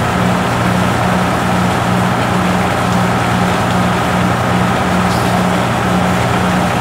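Fire engine's diesel engine running steadily close by, a low drone with a throb that pulses about twice a second.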